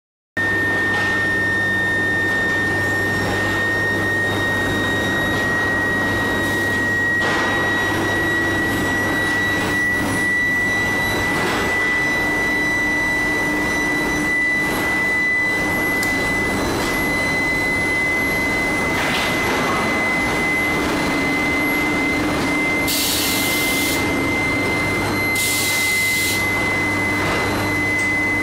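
Electric billet heating furnace running: a steady electrical hum under a high whine that rises slowly in pitch, over a constant hiss. Two short bursts of high hiss come near the end.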